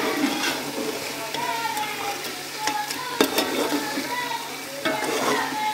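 Mutton pieces frying and sizzling in a thick onion-and-spice masala with no water added, stirred with a perforated metal skimmer that scrapes and knocks against the metal pot. A couple of sharp clicks from the spoon stand out a little past three seconds in.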